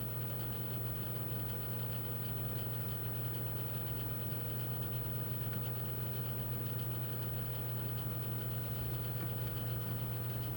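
A steady low hum from electrical equipment running on an electronics repair bench, with fainter steady higher tones over it.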